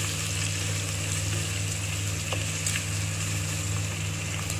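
Sliced onions sizzling in hot oil in an aluminium pressure cooker as they are stirred with a wooden spatula, with a couple of faint taps. A steady low hum runs underneath.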